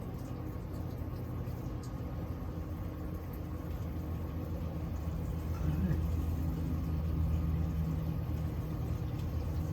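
Water from a garden hose running into a gray water tank, a steady low rumble that swells a little about six seconds in.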